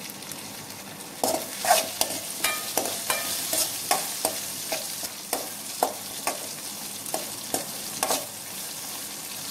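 Whole baby brinjals frying in sesame oil in a metal kadai, a steady sizzle, with a steel spoon scraping and clinking against the pan as they are stirred. The clinks start about a second in and come irregularly, one or two a second.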